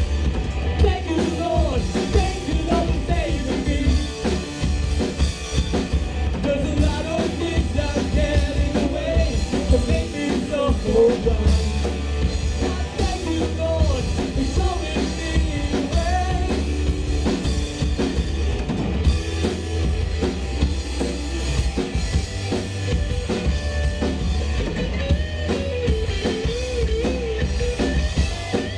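Live rock band playing: drum kit, electric guitar and bass, with a lead melody that bends up and down in pitch.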